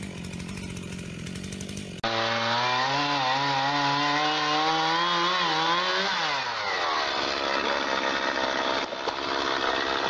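Gasoline chainsaw running at high revs while cutting through a log, its pitch wavering and slowly climbing. About six seconds in the pitch falls as the throttle eases, and the saw keeps running with a rougher sound. A steady engine drone comes before it, in the first two seconds.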